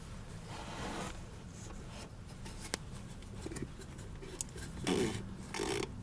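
Faint rubbing and handling noises of fingers working grease onto a strut's bump stop, with a sharp click about three seconds in and a couple of short scraping rubs near the end.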